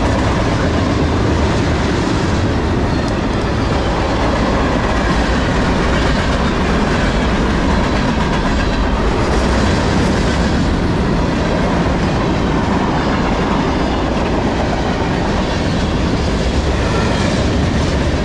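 CSX manifest freight train's tank cars and covered hoppers rolling past at close range: a loud, steady rumble of steel wheels on the rails.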